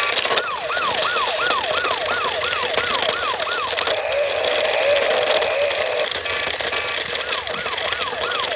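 Toy police motorcycle's electronic siren sound effect: a falling wail repeating about two and a half times a second, switching midway to a steady warbling tone and a few short beeps, then back to the falling wail near the end, over a steady hiss.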